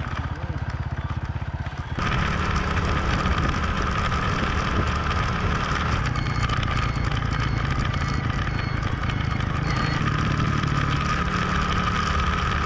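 Motorcycle engine running steadily while riding, with road and wind noise. It becomes louder and fuller about two seconds in.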